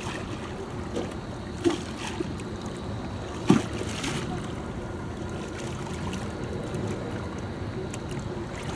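Steady outdoor wind and water noise at the shoreline, with wind buffeting the microphone, and a few short thumps, the loudest about three and a half seconds in.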